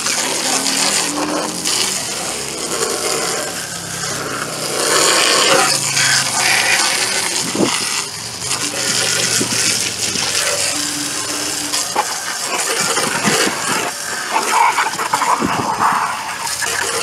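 Spray from a garden hose nozzle hitting the underside of a push mower's metal deck and blade, washing off wet grass clippings. There are a few sharp knocks in the second half.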